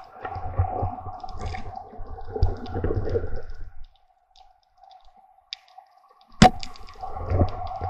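Water rushing and bumping against an underwater camera as a diver swims along a reef, over a faint steady hum, with a sharp click about six and a half seconds in.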